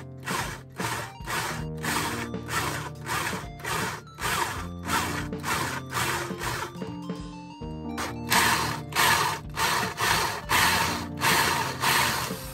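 Power drill grinding into the head of a stripped bass-guitar bridge screw to drill it off, in short, evenly repeated bursts about twice a second, with a brief pause about halfway through. Background music plays underneath.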